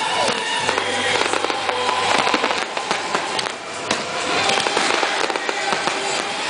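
Fireworks display: aerial shells bursting in quick succession with dense bangs and crackling, never pausing.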